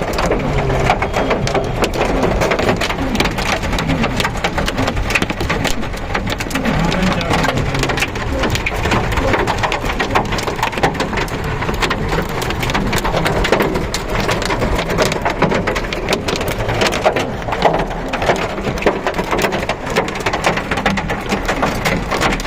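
Heavy rain and hail pelting down: a steady rush of rain with many sharp ticks of hailstones striking hard surfaces.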